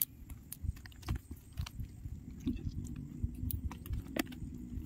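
A wet cast net being handled on mud: scattered small clicks and clinks from the weighted sinker rim, with soft wet thumps and rustling.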